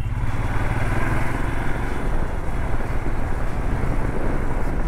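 Motorcycle riding along the road: a steady, loud rumble of engine and wind rushing over the rider's microphone.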